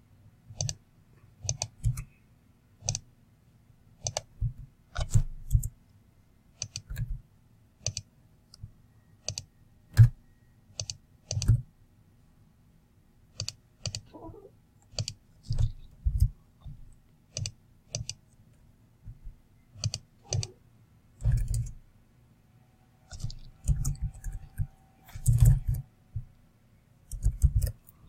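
Computer mouse clicks and keyboard taps at a desk: sharp single clicks at irregular intervals, roughly one a second, with a few quick clusters, over a faint low hum.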